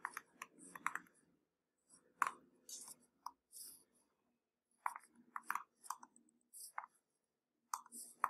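Typing on a computer keyboard: short, sharp key clicks in uneven bursts with brief pauses between them.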